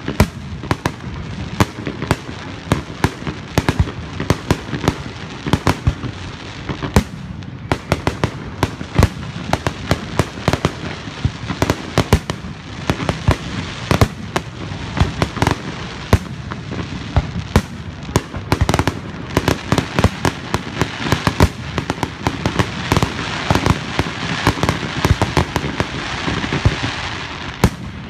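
Fireworks display: a rapid, unbroken string of sharp bangs and crackles from aerial shells bursting, several every second throughout.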